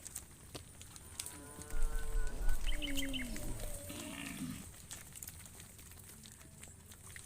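A cow mooing: one long, drawn-out moo starting about a second in, dropping in pitch toward its end, followed by a shorter, fainter call.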